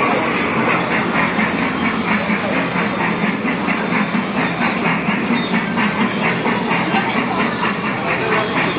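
Small Thomas the Tank Engine kiddie ride train running on its track, with a fast, even clicking clatter of about four or five clicks a second.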